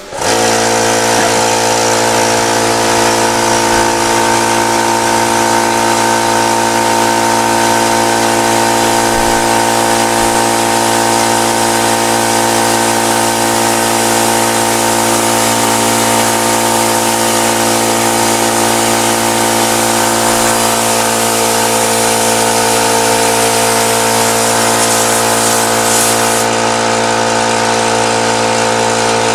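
High-pressure air compressor running steadily with an even motor hum, pumping air into a PCP airgun's reservoir to test it for leaks.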